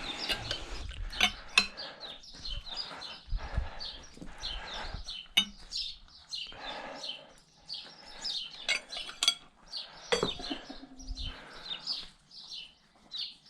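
Metal tools clinking and knocking against the outboard's flywheel puller, with small birds chirping repeatedly in the background.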